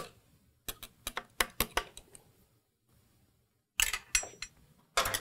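Sharp metallic clicks and clinks in several quick clusters from snap-ring pliers seating a snap ring on a TH400 direct clutch housing in a spring compressor, with the steel parts knocking as they are handled. One clink about four seconds in rings briefly.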